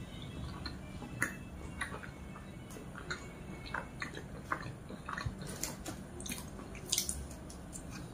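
A person chewing satay and lontong close to the microphone: soft, wet mouth sounds with scattered lip smacks and clicks, a few every second, busier in the second half.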